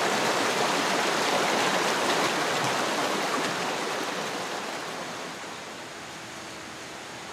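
A small rocky mountain stream rushing and splashing over stones, a steady even noise of running water. About two-thirds of the way through it fades down to a quieter outdoor hush.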